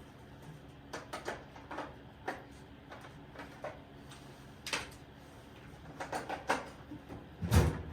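Hand tools clicking and clinking against metal engine parts, irregular short knocks spread through, with one heavier knock near the end.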